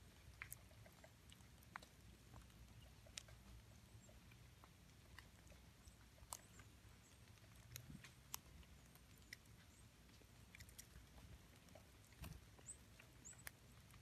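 Near silence in snowy woods: faint, irregular ticks and taps, and two short high bird chirps near the end.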